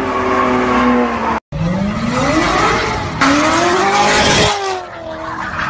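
A sports car engine running at a steady pitch, then an abrupt cut. After the cut a sports car engine revs hard, its pitch climbing and then falling, with loud tyre squeal for about a second and a half as the car slides.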